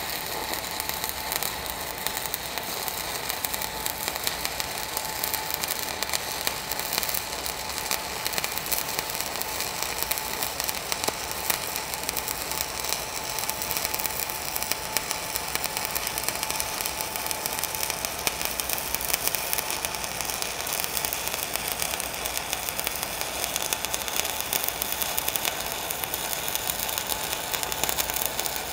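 Stick-welding arc of a 3/32 7018 electrode at about 83 amps, making a steady, dense crackle while running an uphill fillet weld.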